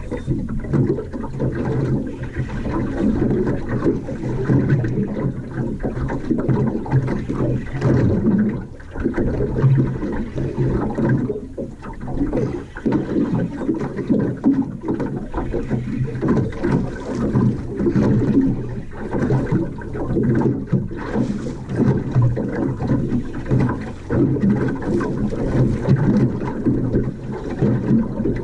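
Small boat under way on choppy water, its outboard motor running with a steady low drone, mixed with wind on the microphone and water rushing past the hull.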